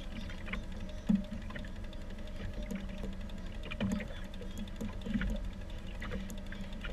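Fishing reel being cranked while playing a fish on a bent rod, a run of small irregular clicks from the reel's gears. A steady low hum runs underneath, and there is a sharper knock about a second in.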